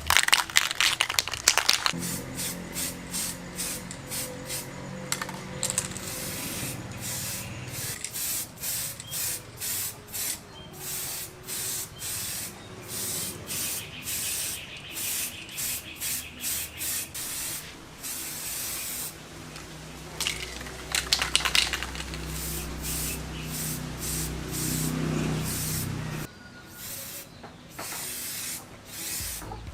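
Aerosol spray-paint can hissing in many short repeated bursts, about one to two a second, with a few longer sprays, while motorcycle wheel hubs are painted.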